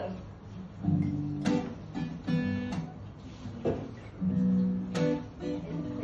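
Acoustic guitar being strummed, a string of chord strokes roughly every half second to a second, with the chords ringing on between them.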